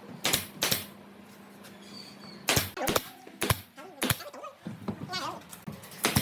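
A series of sharp, irregular knocks and taps, about eight in six seconds, as of hard objects being set down or struck in a workshop.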